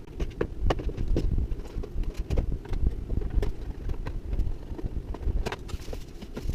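Low rumble of handling noise on the microphone, with irregular light clicks and taps as the toy blaster and its packaging are handled.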